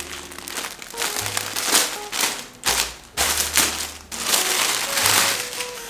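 Packaging crinkling and rustling in several bouts as a new outfit is unwrapped and handled, over background music with a steady bass line.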